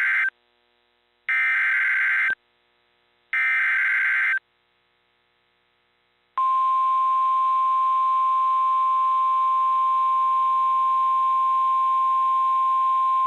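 NOAA Weather Radio SAME alert header: three one-second bursts of warbling digital data tones about a second apart, the first already under way at the start. After about two near-silent seconds, the steady 1050 Hz weather radio warning alarm tone starts. Together they signal a new alert, a Severe Thunderstorm Watch.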